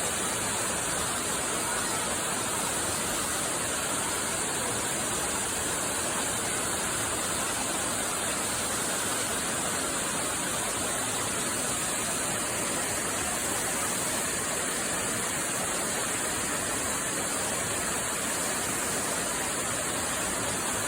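Hiji Great Waterfall's water pouring and splashing, a steady, unbroken rushing noise with a steady high-pitched hiss on top.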